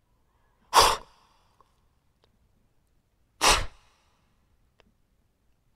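An animal snorting: two short, sharp blasts of breath through the nose, each about a quarter second long and a little under three seconds apart, with a third beginning right at the end.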